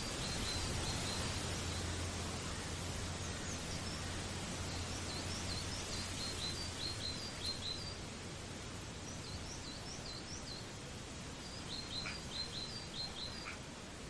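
Small birds chirping in several quick runs of short, high notes, over a steady background hiss.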